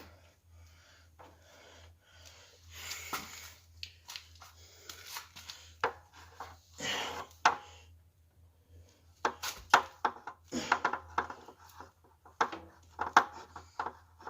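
Rubber fuel hose being twisted and worked by hand onto its fitting. The handling makes irregular rubbing and scraping with short sharp clicks and knocks, which come more thickly in the second half.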